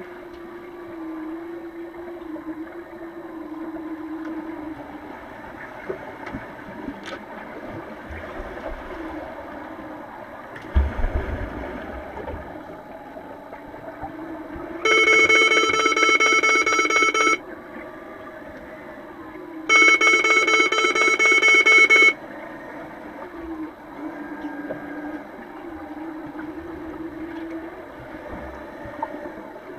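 Underwater pool noise of rushing water and players' bubbles, with a thump about a third of the way in, then two long, loud blasts of an underwater referee's electronic horn, each a bit over two seconds long, one after the other: the signal that stops play in underwater rugby.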